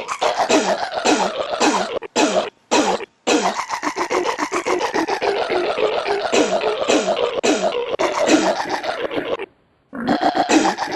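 Belching sounds sampled and chopped into a rapid rhythmic stutter, the snippets repeating several times a second as a music-app remix, with a few brief cutouts about two to three seconds in and near the end.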